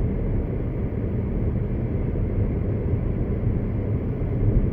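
Steady low rumble of a Suzuki Baleno RS's 1.0-litre engine and tyres while driving at a steady pace, heard from inside the cabin.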